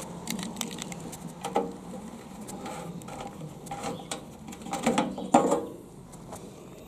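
Hinged metal fuel filler cap on a mud-caked, flood-damaged Honda CB 750 tank being unlocked with its key and levered open: a run of small clicks and scrapes, louder about five seconds in.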